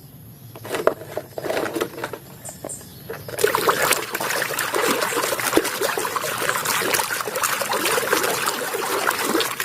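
Water running and splashing over a muddy toy as it is rinsed, starting about three seconds in and cutting off near the end. Before it come light knocks and rubbing from the toy being handled.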